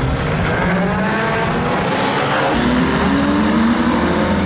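Engines of a pack of banger racing cars running and revving, with engine notes rising in pitch as they pick up speed.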